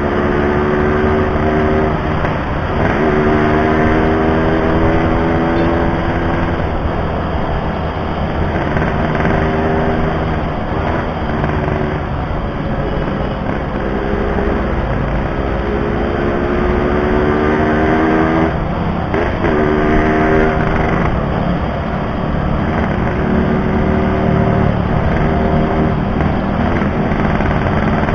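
Yamaha RX-King 135's single-cylinder two-stroke engine under way, its note climbing and dropping back again and again as the rider opens the throttle and shifts gears.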